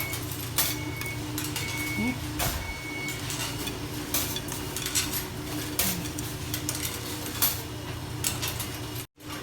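Laundromat washers and dryers running with a steady hum, with scattered clinks and clicks and two short high beeps from a machine about two seconds in. The sound cuts off abruptly near the end.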